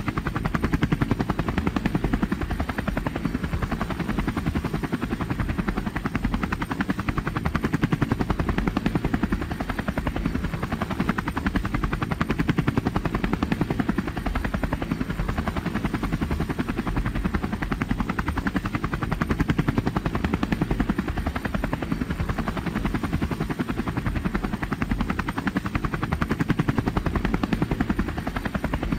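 A Mil Mi-8/Mi-17-type helicopter flying, its main rotor beating in a fast, steady chop over the engine rumble.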